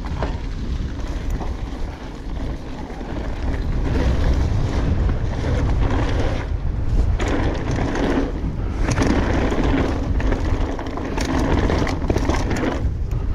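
Wind rumble on a GoPro's microphone over the noise of mountain-bike tyres rolling on a dirt trail, with short knocks and rattles from the bike; the tyre noise drops away briefly a few times.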